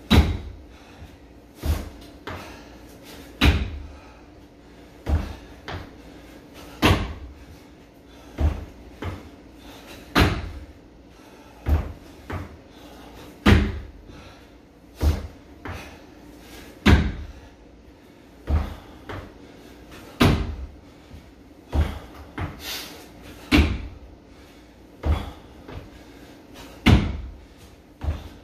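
Repeated box jumps on a homemade wooden plyometric box. Feet land on the box with a heavy thud about every one and a half to two seconds, each followed by a softer thump as he steps back down to the matted floor.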